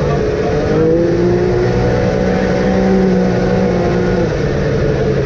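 Off-road vehicle engine running under throttle: the pitch rises about a second in, holds steady, then drops about four seconds in as the revs fall.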